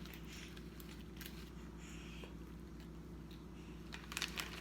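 Quiet room with a steady low hum and a few faint clicks and soft rustles, near the end more of them close together.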